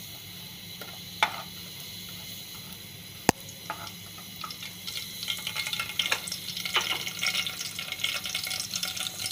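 Cumin seeds frying in hot oil in a steel pot while being stirred with a wooden spatula, tempering the oil. A steady hiss with two sharp knocks in the first few seconds, then from about five seconds in the oil crackles and sizzles more and more as the seeds start to fry.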